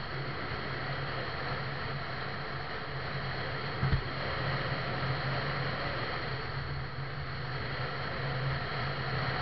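Steady wind and road noise from a vehicle travelling at speed on a highway, over a low steady hum. One short low thump about four seconds in.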